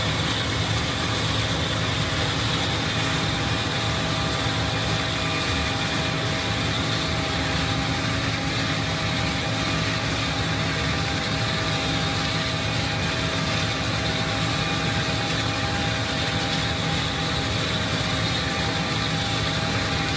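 John Deere combine harvester running steadily at work: a constant engine and machinery drone with a high, steady whine on top.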